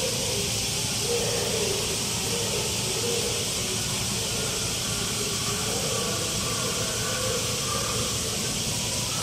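Steady hissing background noise, with faint distant voices murmuring underneath.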